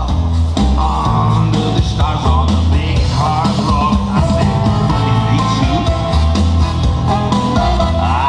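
Loud rock music with a heavy bass line and a singing voice.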